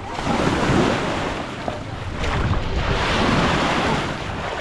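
Sea waves washing onto the beach, with wind buffeting the microphone. The rushing wash swells louder twice.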